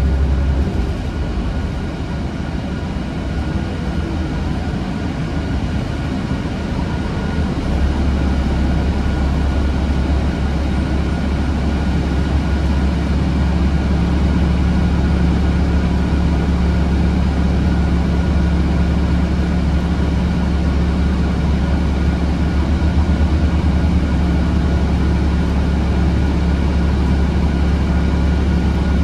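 Inside a city transit bus: the bus engine and cabin drone as the bus slows to a stop and then sits idling, a steady low hum. About thirteen seconds in, a second steady, higher hum joins.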